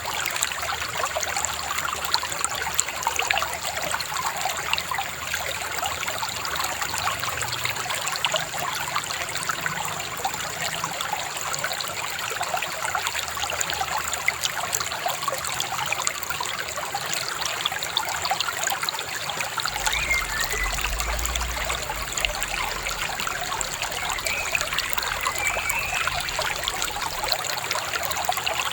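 Shallow river babbling and trickling steadily over stones, a continuous fine splashing.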